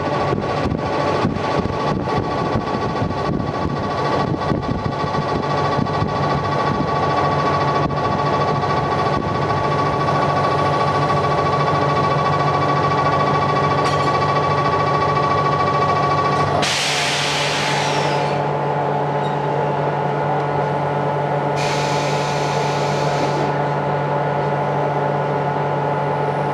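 Series 711 electric train heard through an open window. Wheel clicking over the rail joints thins out and a steady electrical whine runs until a little past halfway, then two bursts of compressed-air hiss, the second about five seconds after the first, over a steady hum.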